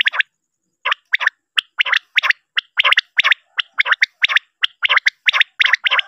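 Quail calling over and over: short, sharp, rattling notes repeated about three times a second, after a brief pause at the start.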